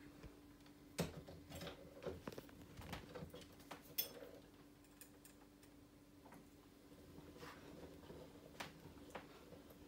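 Faint, scattered clicks and knocks from a hand-cranked jeweller's rolling mill being turned and fed gold wire, the two loudest about one and four seconds in, over a faint steady hum.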